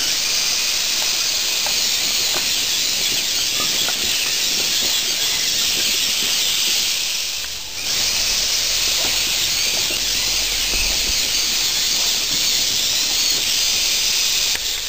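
Steady loud hiss with faint scattered clicks, dipping briefly about eight seconds in.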